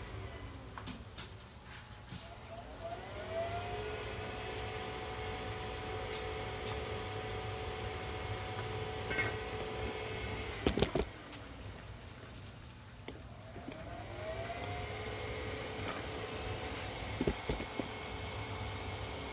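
Weber SmokeFire pellet grill's fan motor spinning up to a steady whine, cutting out after a few sharp clicks about eleven seconds in, then spinning up again, over a low hum. The grill is in shutdown mode during a grease fire.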